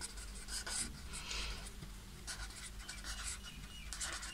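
Felt-tip marker writing on paper: a run of short, soft scratching strokes as the letters are formed.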